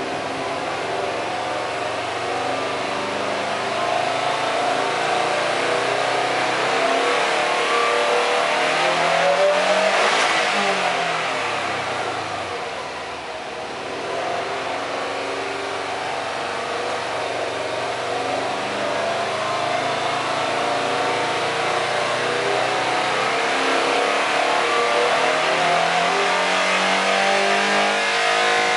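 Exhaust note of a Subaru Exiga 2.0GT's turbocharged flat-four, fully warmed up and revved with the car standing still. The engine speed climbs slowly to a peak about ten seconds in, falls back, then climbs slowly again.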